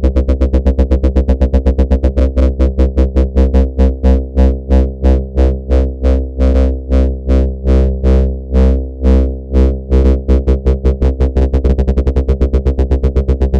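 Synthesized bass from Arturia Pigments' virtual analog engines, a sustained low note chopped into pulses by a fast LFO on the volume and phase modulation. The pulses come about six a second, slow to about two a second midway, then speed up again toward the end.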